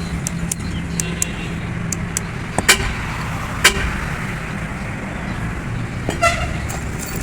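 Sharp knocks and clicks from work on a truck drive shaft's universal joint, two louder strikes about three and four seconds in, over steady road traffic noise.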